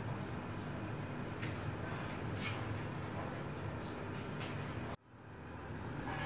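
Goat trotters and masala cooking in a large aluminium pot, a steady low sizzle, under a continuous high-pitched trill like a cricket's. The sound drops out briefly about five seconds in, then returns.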